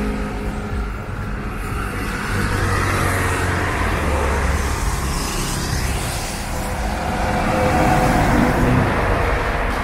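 Road traffic: cars and a city bus driving past on the avenue, with engine hum and tyre noise that swells as the bus comes close about eight seconds in.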